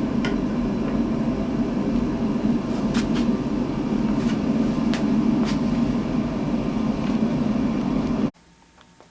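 Steady, loud machine drone of a motor running, with a few sharp clicks about three to five and a half seconds in. The drone cuts off suddenly near the end.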